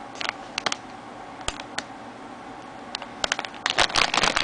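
Plastic model-kit parts and packaging being handled: scattered light clicks and taps, then denser clicking and crinkling starting about three seconds in.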